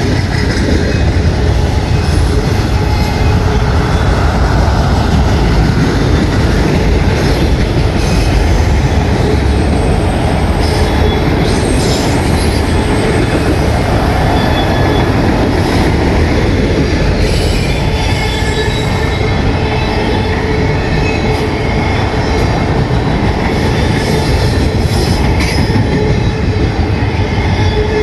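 Freight train of autorack cars rolling past close by, a loud steady rumble of steel wheels on the rails, with high-pitched wheel squeal coming and going.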